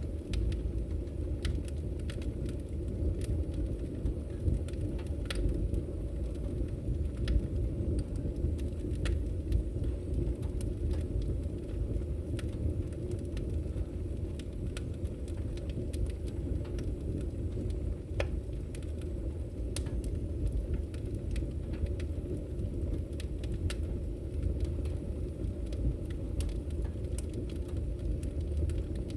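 Campfire burning: a steady low rumble of flames with scattered, irregular crackles and pops from the burning wood.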